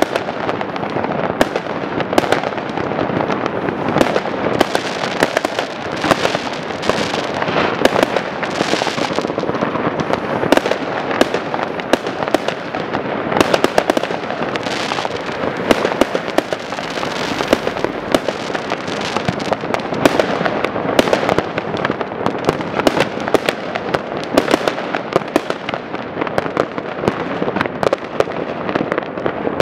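Fireworks going off: a dense, unbroken crackle of many overlapping bangs and pops.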